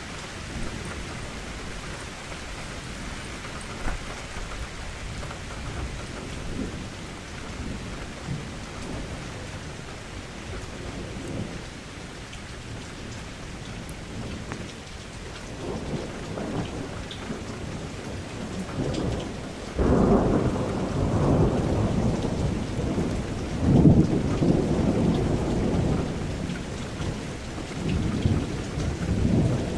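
Steady rain with thunder. Low rumbling starts building a little past halfway, then a loud roll of thunder breaks in suddenly about two-thirds through and rumbles on, swelling again near the end.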